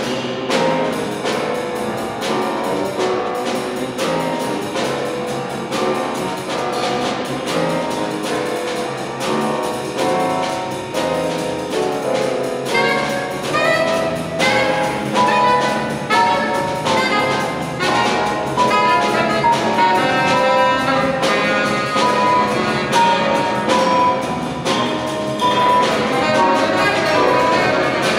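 Jazz quartet playing live: saxophone carrying the melody over piano, double bass and drum kit.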